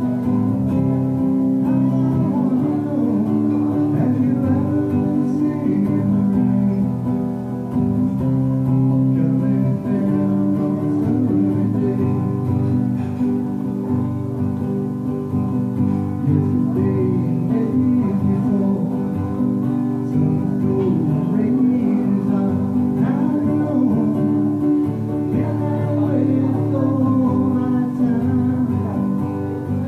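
A man singing to his own strummed acoustic guitar, a solo, laid-back rock song.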